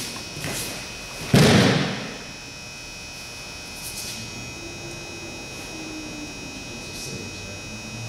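A person thrown by a judo sliding foot sweep (okuri ashi harai) hits the mat with one loud thud about a second and a half in. A few faint brief scuffs come before and after it.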